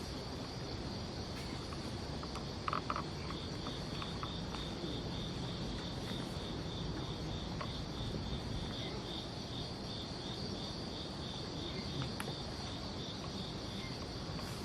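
Night insects, crickets, chirping steadily: one continuous high buzz together with a pulsed chirp repeating about four times a second. A few short clicks sound about three seconds in.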